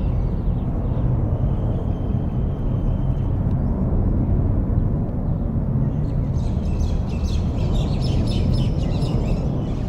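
Many small birds chirping together from about six seconds in, over a steady low outdoor rumble. A thin high whistle is held for about two seconds near the start.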